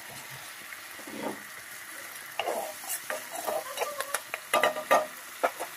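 Spatula stirring and scraping a thick onion-tomato masala frying in oil in a kadai, over a steady faint sizzle. About halfway through, a quick run of scrapes and knocks against the pan begins and carries on almost to the end. The masala is far enough along that the oil is separating.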